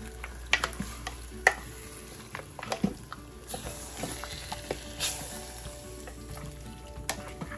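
A black plastic spoon stirring chunks of oiled, seasoned raw goat meat in a slow-cooker pot: wet squelching and sloshing with scattered clicks of the spoon against the pot.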